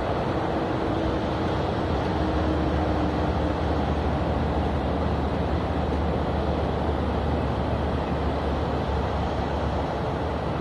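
Steady rumble and hiss of highway traffic heard from a hot air balloon high above it, with a faint hum in the first few seconds.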